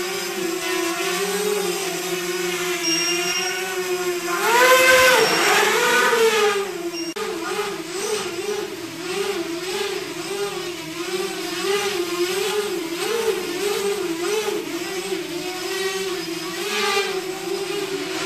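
Brushless motors and propellers of a TILT PRO v2 tiltrotor FPV miniquad on a 4S battery, a steady whine that wobbles up and down in pitch as the throttle changes. About four seconds in it surges louder and higher, then settles back into the wavering whine.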